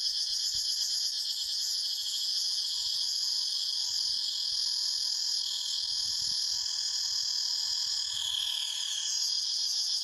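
Chorus of cicadas buzzing in a dense, continuous high-pitched drone, with a wavering shimmer on top and one call sliding down in pitch near the end.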